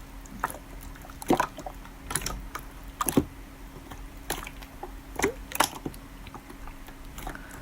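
Slime being played with by hand: scattered sharp clicks and wet crackles, a few to the second, over a faint steady hum.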